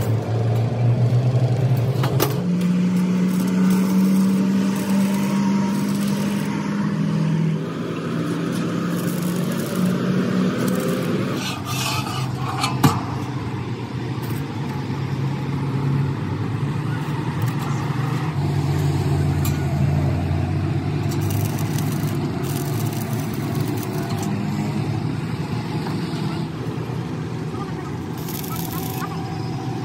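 A vehicle engine running, its speed shifting up and down several times, with one sharp knock about halfway through.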